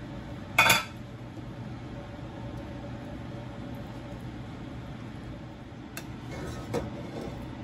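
A kitchen utensil clanks once, sharply, against a stainless steel cooking pot about half a second in, followed by a few lighter clinks near the end as the tortillas are turned in the bean sauce. A steady low hum runs underneath.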